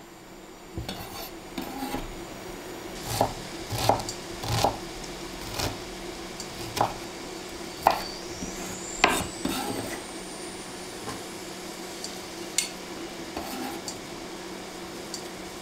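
Kitchen knife chopping a red onion on a wooden cutting board: irregular knocks of the blade on the board, a dozen or so spread over the stretch, over a low steady hum.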